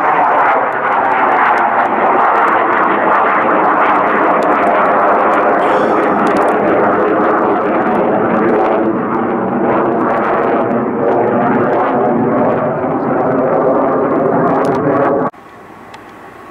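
Military fighter jet flying overhead, its engine noise loud and steady with slow sweeping shifts in tone. Near the end it cuts off suddenly to a much quieter, distant aircraft engine sound.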